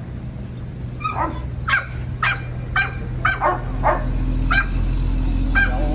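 A dog barking repeatedly, short sharp barks about twice a second, over a steady low hum.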